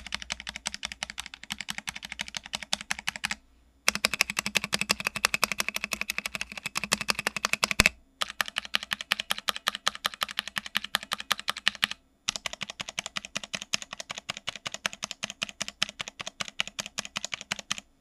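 Fast, continuous typing on a VortexSeries GT6 65% mechanical keyboard, a rapid run of key clacks that breaks off briefly three times.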